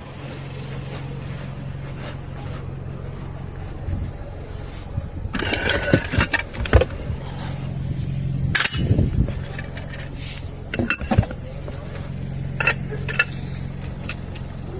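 Scattered metal clinks and clanks of tools and lug nuts being handled during a roadside tire change, over the steady hum of an idling vehicle engine.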